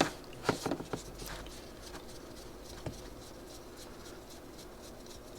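Light clicks and taps of a small screwdriver and metal carburetor parts being handled, several in quick succession in the first second and one more about three seconds in, as the choke butterfly is worked out of a small-engine carburetor.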